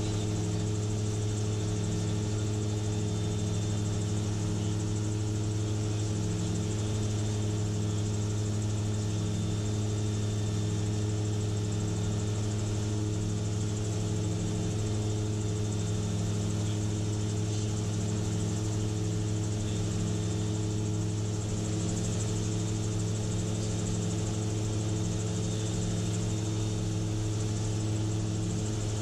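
Gyrocopter engine and propeller running steadily in cruise flight, heard from inside the cockpit as a strong, even drone with a faint throb in it, over a rush of air.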